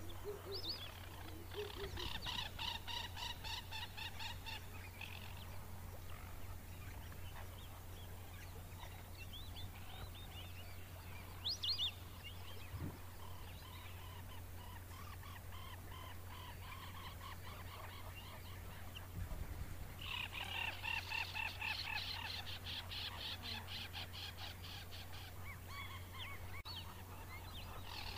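Wetland animal calls: two long runs of rapid rattling trills, a few seconds each, one early and one in the second half, with a short rising whistle near the middle and fainter scattered calls, over a steady low hum.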